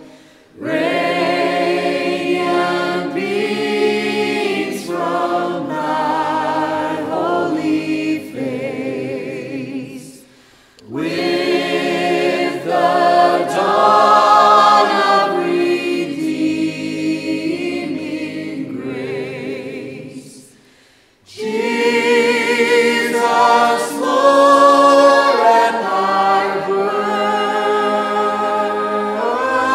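Choir singing a cappella in long, slowly held phrases, with three phrases separated by short pauses for breath.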